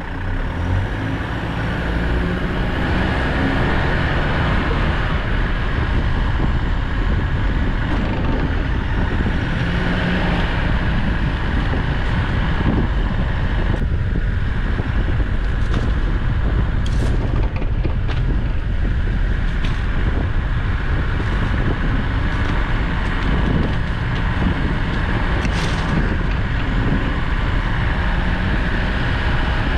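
Four-wheel-drive vehicle pulling away and driving along a sand track, with a steady engine and tyre rumble that builds over the first couple of seconds. Two brief sharp high sounds break through, about halfway through and near the end.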